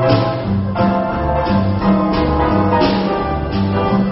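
Live acoustic jazz quartet of piano, alto saxophone, drum kit and upright bass playing a swing tune. The double bass walks a stepping line under held melody notes, with the cymbals struck in a regular beat.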